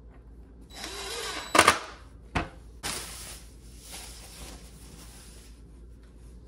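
Cordless driver whirring briefly as it drives a screw to fix a hinge to a cabinet door, followed by a sharp knock and a click. Then about three seconds of rustling as the foam and plastic wrapping is pulled off the next door.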